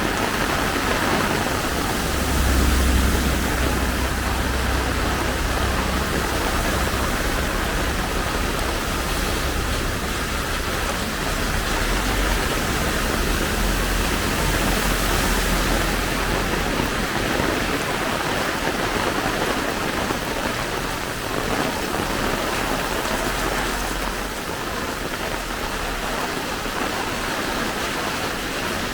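Heavy tropical rain falling steadily, a dense even hiss. A low rumble sits under it a couple of seconds in and again around the middle.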